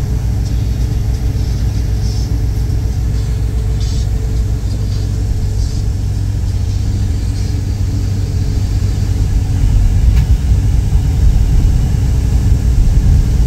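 Steady low rumble of a moving vehicle heard from inside its cabin, growing louder about ten seconds in.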